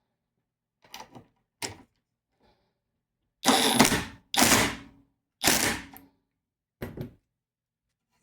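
Cordless drill run in three short bursts into a bamboo cutting board, with a few lighter knocks before and a shorter burst after.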